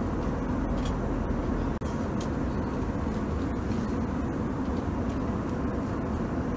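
Steady airliner cabin noise: a constant low rumble and hiss heard from a passenger seat.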